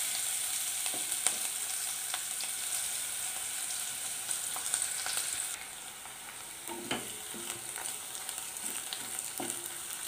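Grated onion sizzling in hot oil with cumin seeds in a kadai, stirred with a wooden spatula that scrapes and knocks against the pan now and then. The sizzle is louder at first and settles quieter about halfway through.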